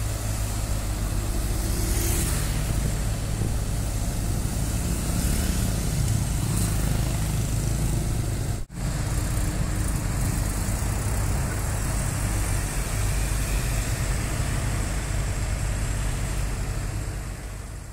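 Truck engine running steadily, with street traffic around it; the sound drops out for an instant about nine seconds in.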